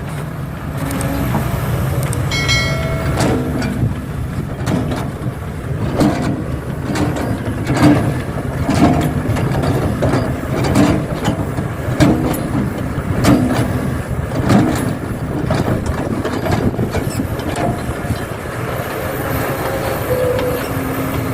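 Heavy diesel machinery at an excavator loading soil into a dump truck, running with a steady low rumble. Through the middle it is broken by a run of knocks and clanks about once a second.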